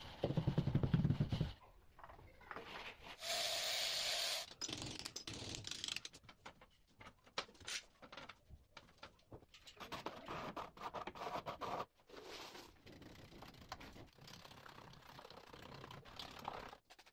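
Tile-setting work heard in short, abruptly cut clips: a rubber mallet knocking a ceramic wall tile into place, tiles being handled and laid, and a straightedge scraping across wet mortar.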